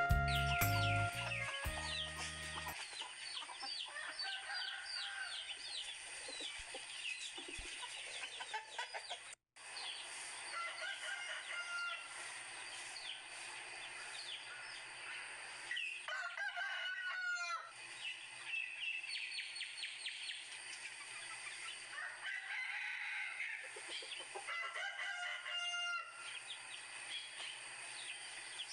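Farmyard ambience: a rooster crowing and hens clucking, with small birds chirping throughout. The sound drops out for a moment about a third of the way in.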